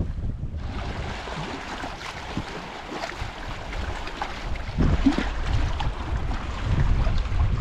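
Wind buffeting the microphone in gusts over a steady rushing hiss; the rumble eases after the start and picks up again about five seconds in and near the end.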